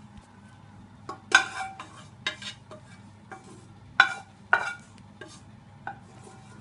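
Kitchen utensils knocking and clinking against cookware, about six separate clinks with short ringing, the loudest about a second and a half in and at four seconds, over a low steady hum.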